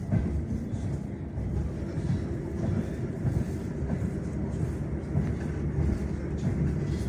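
Russian suburban electric train (elektrichka) in motion, heard from inside the carriage: a steady low rumble of the wheels running on the rails.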